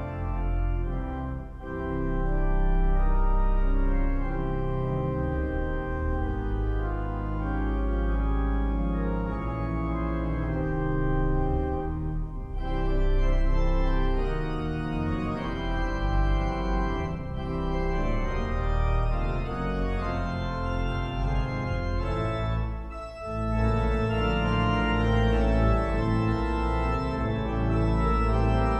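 Pipe organ of Leeds Minster playing slow, sustained full chords over a deep pedal bass, with brief drops in level between phrases about a second and a half in and again near 23 seconds.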